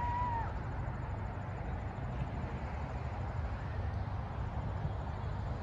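Low steady outdoor rumble, with a steady high tone that cuts off about half a second in.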